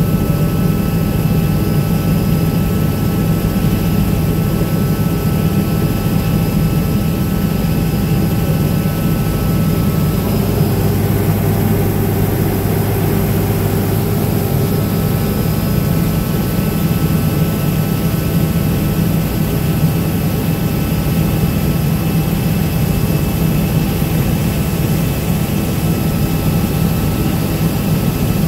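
Helicopter in flight heard from inside the cabin: a loud, steady drone of engine and rotors with a few thin, steady high tones above it. The tone shifts slightly about ten seconds in, the higher tones fading while the low hum strengthens for a few seconds.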